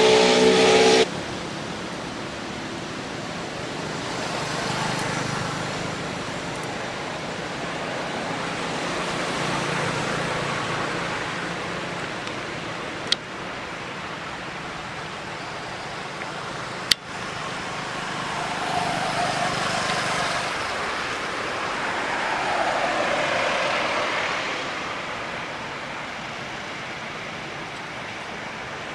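A pitched sound with several stacked tones cuts off about a second in. It gives way to steady outdoor background hiss that swells and fades gently, with two sharp clicks about four seconds apart midway.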